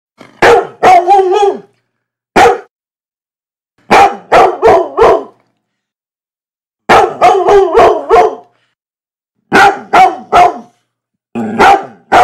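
A dog barking in six short runs of one to five barks each, with dead silence between the runs.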